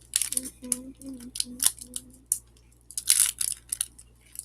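Snickers bar's plastic wrapper crinkling and being torn open: a run of sharp crackles, then a louder rip about three seconds in.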